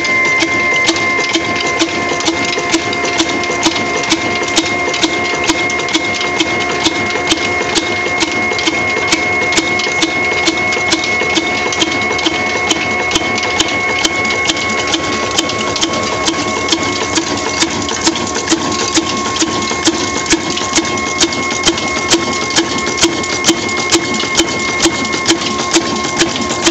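Old black 26 HP single-cylinder desi engine running under load while driving a chakki flour mill. It beats slowly and regularly, about two strokes a second, with a steady high whine over it.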